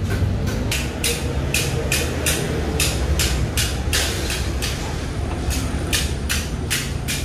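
Hand ratchet wrench clicking in short, quick strokes, about two or three a second, tightening the refrigerant line fittings on a newly fitted car AC compressor, over a steady low rumble.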